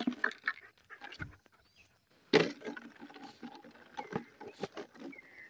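Dry fallen leaves crunching and rustling underfoot in irregular crackles, with a louder crunch a little over two seconds in.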